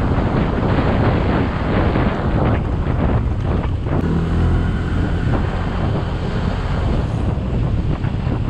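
Heavy wind buffeting on a helmet-mounted action camera's microphone while riding a Yamaha Mio Gravis scooter, with the scooter's engine running underneath. From about four to seven seconds in, a steady engine tone shows through the wind.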